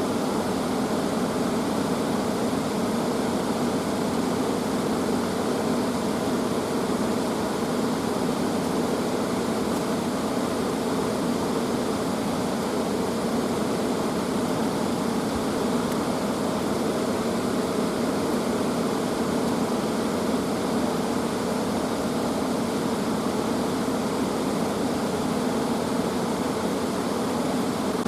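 Steady, unbroken rushing of a mountain stream's flowing water.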